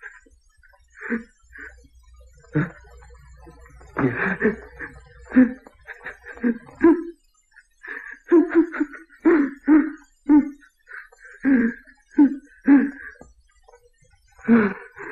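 A man sobbing and gasping in short, broken bursts of choked voice, a man breaking down while trying to hold his emotions in.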